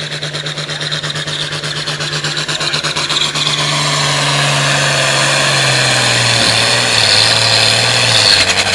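Turbocharged International Harvester tractor diesel at full throttle, pulling a sled: a loud engine note that grows louder while its pitch sinks over the last few seconds as the engine lugs down under the rising load, with a high whine above it.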